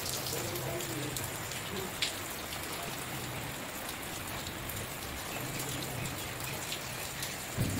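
Steady rain falling on trees and leaves, an even hiss, with one sharp tick about two seconds in.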